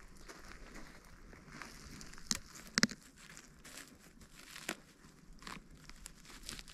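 Irregular rustling and crackling of dry leaf litter and twigs, with a few sharper snaps, the loudest about three seconds in.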